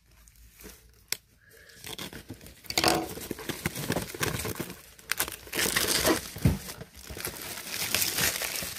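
Clear plastic shrink wrap being torn and peeled off a cardboard box, crinkling and crackling in bursts that start about two seconds in.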